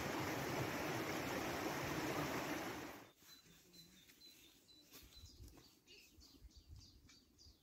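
A steady rushing noise that cuts off suddenly about three seconds in. It is followed by faint birdsong: small birds chirping in quick, repeated high notes.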